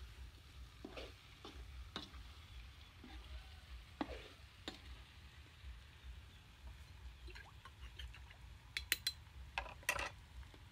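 Metal spatula scraping and knocking against a wok as chunks of chicken are stir-fried, in short separate strokes, with a quick run of sharp clinks near the end.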